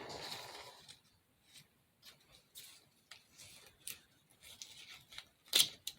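Hands handling small craft pieces: a soft rustle, then scattered light clicks and taps, with a louder short crinkly rustle near the end.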